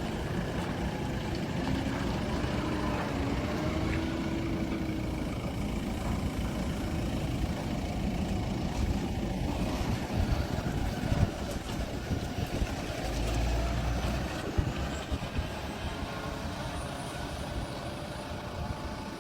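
Tractor engine running steadily, driving a PTO air compressor, with its pitch shifting slightly near the start and a few knocks about ten seconds in.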